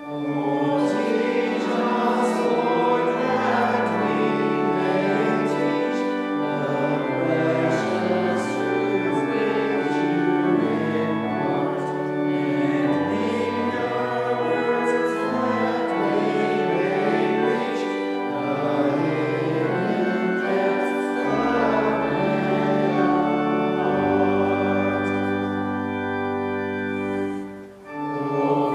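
Organ and voices singing together in slow, sustained chords, with a brief break near the end before the music carries on.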